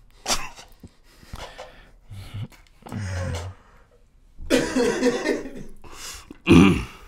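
Men laughing in short bursts, mixed with coughs, as a reaction to a joke's punchline. The loudest burst comes near the end.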